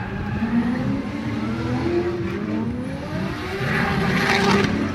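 Drift cars' engines revving hard, pitch climbing in long sweeps, with a rush of tyre noise about three and a half seconds in as the cars slide sideways.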